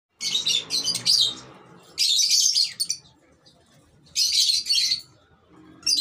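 Parrots screeching: three harsh, loud calls of about a second each, spaced a couple of seconds apart, and a short squawk near the end.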